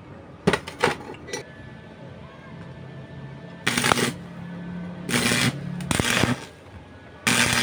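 Stick-welding arc crackling in four short bursts of under a second each, with a few sharp crackles before them as the arc is first struck. A low hum runs between the bursts.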